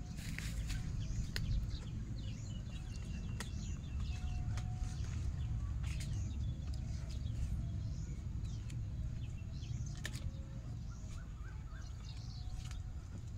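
Rural outdoor ambience: small birds chirping and chickens calling over a steady low noise, with a few sharp clicks scattered through.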